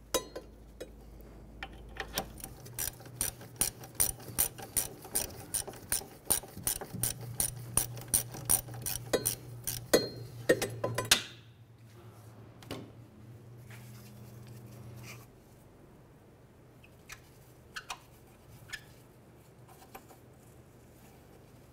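Hand ratchet clicking as a hub mounting bolt is backed out, with a steady run of sharp clicks at about two or three a second. The clicking stops about eleven seconds in, leaving a few faint handling clicks.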